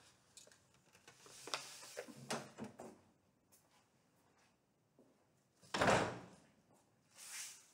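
Wooden door being pushed open, with clicks and handling noise for the first few seconds, then a single loud thud about six seconds in and a short hiss near the end.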